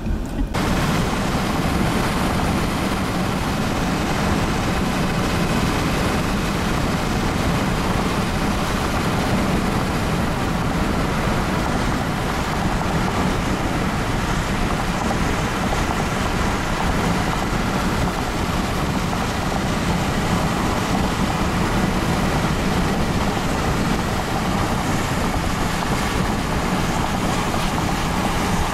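Strong storm wind rushing steadily across the camera microphone. It starts suddenly about half a second in and then holds at an even level.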